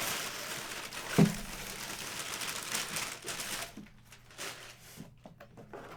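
Packaging crinkling and rustling as a box is opened by hand, with one sharp knock a little over a second in. After about three and a half seconds it goes quieter, with a few small clicks and taps.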